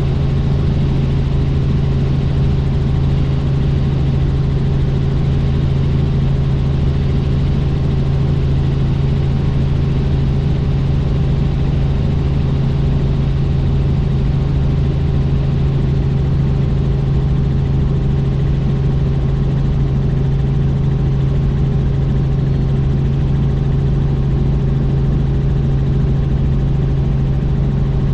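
Helicopter in steady flight: a loud, unchanging drone of engine and rotors with a strong low hum.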